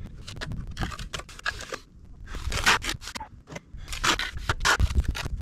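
Trowel scraping and spreading surface bonding cement across a concrete block wall in a series of uneven strokes.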